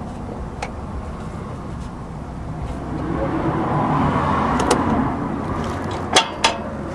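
Sharp metallic clicks and taps of small parts being worked on under a car while the shifter linkage clip is refitted, two louder clicks near the end. A steady background hum with a vehicle passing by, swelling and fading about midway.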